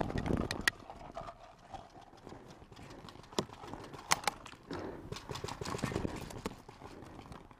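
Scattered sharp pops of paintball markers firing across the field, mixed with the thuds and rustle of a player running and crouching into cover behind a plastic barrel.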